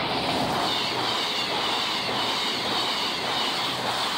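CrossCountry Voyager diesel multiple unit passing at speed: a loud, steady rush of the train going by.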